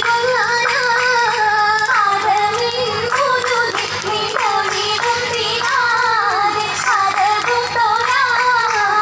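Oppana song: a high voice sings a winding, ornamented melody continuously, with hand claps keeping time.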